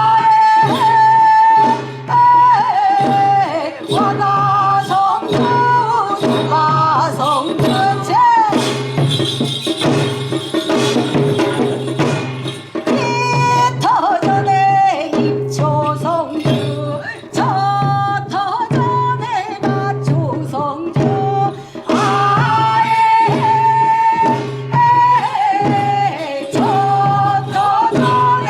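Korean folk music: a high melody with held and sliding notes over samul nori percussion keeping a steady beat.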